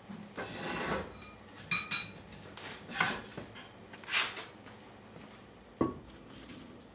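Heavy metal swage block being shifted and handled on its stand: scraping, ringing metal clinks about two seconds in, and a sharp knock near the end.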